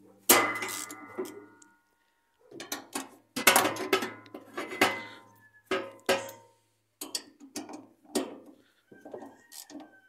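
Ratchet wrench, extensions and socket clinking and clanking against metal while loosening the transmission cover bolts of a two-belt Maytag washer. The sounds come irregularly, and a few of the knocks ring briefly.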